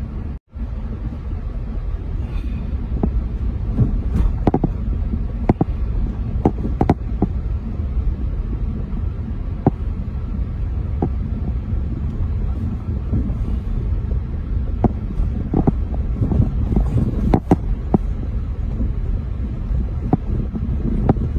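Car cabin noise while driving slowly on snowy roads: a steady low rumble of engine and tyres, with scattered light knocks and clicks throughout. The sound drops out for a split second about half a second in.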